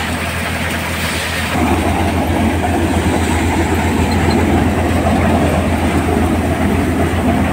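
Tractor-driven paddy thresher running steadily under load, a continuous mechanical drone with a low hum and a fast even rattle while threshed rice grain pours from its outlet. It grows louder about a second and a half in.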